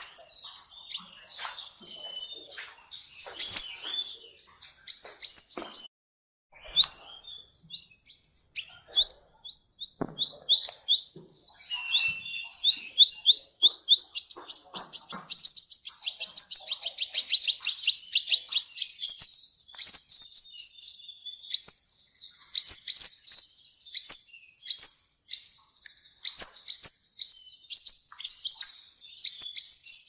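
Sunbird ('kolibri ninja') singing a long, high, rapid twittering song: strings of sharp, quickly repeated notes with brief pauses, the runs growing longer and denser from about halfway through.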